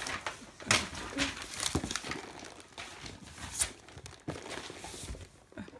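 Crinkling and rustling of paper and a cardboard toy box being handled, with several sharp taps and knocks scattered through it.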